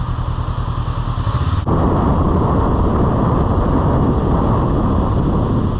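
Motorcycle engine running with wind and road rush on the move. About a second and a half in, the sound steps up abruptly to a louder, fuller rush and stays there.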